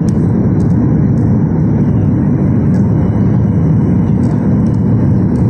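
Cabin noise of a Boeing 737 jet airliner on final approach with flaps extended: a loud, steady rush of engines and airflow, heaviest in the deep range, heard from a window seat.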